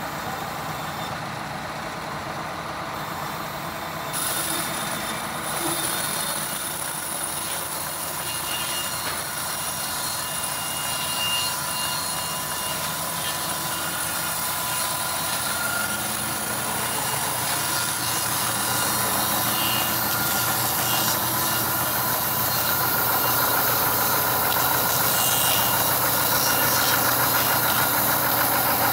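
Band sawmill running and sawing a mahogany log: a steady mechanical noise from the motor and blade, with a thin steady whine over it. It fills out about four seconds in and slowly grows louder as the cut goes on.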